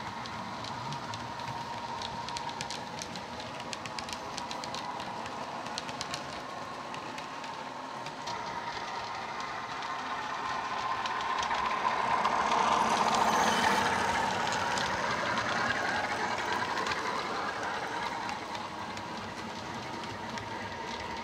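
Heljan OO gauge Class 45 model's LokSound decoder playing the Legomanbiffo Sulzer diesel engine sound through its EM1 speaker as the train runs, with the model's wheels clicking over the rail joints. The engine sound swells as the locomotive passes, about halfway through, then fades.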